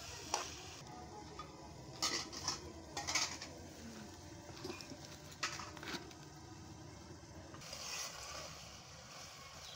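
A metal spatula scraping and knocking in an aluminium pot of frying potatoes and tomatoes, then a few sharp metal clinks as the pot is covered with its lid. A faint sizzle of the curry frying fades about a second in and returns near the end.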